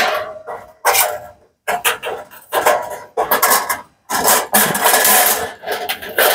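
Sheet-metal parts of a folding charcoal BBQ grill clattering and scraping as they are opened out and set in place: a run of clanks and rattles with a longer scrape near the middle, broken by several abrupt silent gaps.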